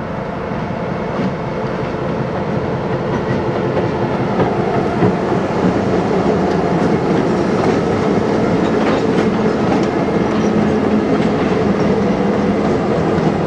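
A consist of four-axle EMD diesel locomotives with 645 engines passes close by, engines working as they lug part of a heavy train up a grade. Wheels clack over rail joints, and the sound grows a little louder as the units come alongside.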